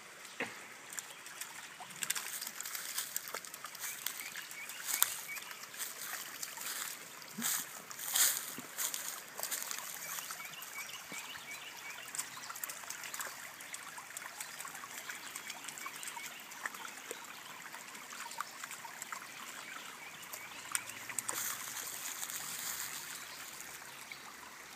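Shallow rocky creek trickling steadily, with scattered small splashes and patters as a small dog wades and steps in the water; the splashing is loudest about five and eight seconds in.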